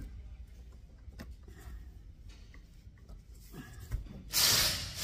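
Small clicks of a wiper arm being handled and seated on its pivot over a low hum, then a brief loud rubbing hiss on the windscreen glass about four seconds in that fades out quickly.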